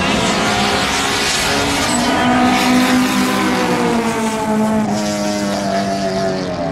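Race car engines running hard at high revs as the cars lap the circuit, the engine note rising a little and then easing off about midway.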